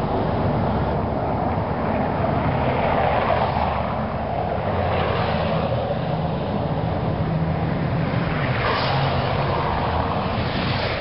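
Motor scooters, motorcycles and cars driving past one after another on a cobblestone road: several engines swelling and fading as each vehicle passes, over a steady traffic rumble.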